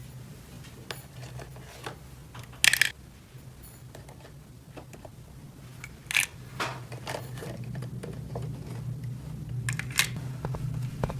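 Small hard plastic toy pieces being handled, with scattered light clicks and taps and a few louder clacks about three, six and ten seconds in, over a steady low hum.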